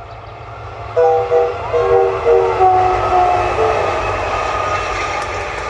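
Electric freight locomotive's horn sounded in a series of short blasts at changing pitches, over the steady rumble and wheel noise of a double-headed container train coming up and passing.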